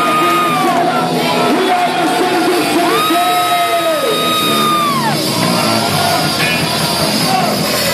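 Live rock band playing loud, with full drums and instruments, and a high note held long and then dropped, twice.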